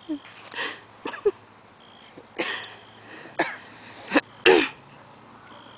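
A person making about half a dozen short, breathy vocal sounds, spaced roughly a second apart, with no words. The loudest, about four and a half seconds in, is voiced and falls in pitch.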